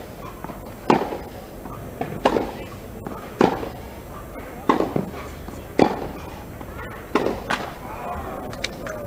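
Tennis rally: tennis balls struck by rackets in an even back-and-forth, one sharp hit a little over every second, about seven in all, alternating between the two players.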